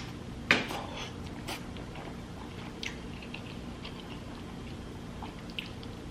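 Close-miked eating: chewing of king crab and lobster meat with wet mouth clicks and smacks. The loudest is a sharp smack about half a second in, with smaller clicks scattered through.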